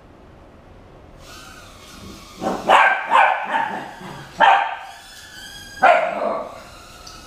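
Border collie puppy barking at a toy mini drone, about six short barks between about two and a half and six seconds in, over the faint, steady high whine of the drone's small motors.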